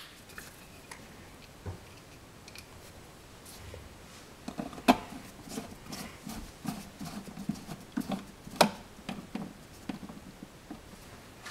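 Screwdriver driving the wall-plate screws back in: scattered small clicks and scrapes of metal on screw and plate. They start a few seconds in, and two sharper clicks come about five and eight and a half seconds in.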